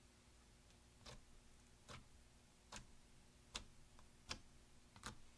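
Fingertips poking into a mound of chrome slime, giving six faint sticky clicks, evenly spaced a little under a second apart.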